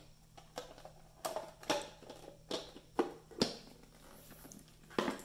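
Handling noises from a patient monitor's plastic housing and a small screwdriver: an irregular series of sharp clicks and knocks, about seven in all, the loudest a little past the middle and near the end.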